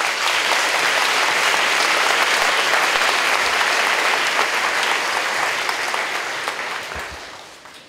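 Applause from an audience of schoolchildren, many hands clapping at once, tapering off over the last couple of seconds.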